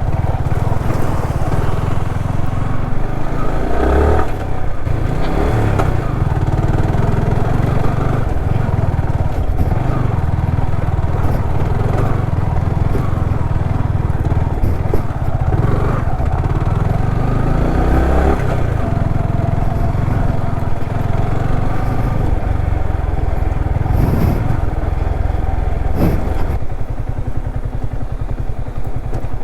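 Motorcycle engine running under changing throttle while riding a rough off-road trail, with a few sharp knocks along the way.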